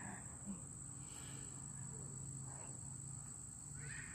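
Crickets trilling steadily, a faint continuous high-pitched chirr.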